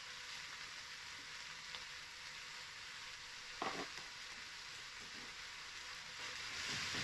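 Cowpea leaves (kunde) sizzling in a hot pan: a steady, fairly quiet frying hiss, with one brief knock of a utensil against the pan a little past halfway.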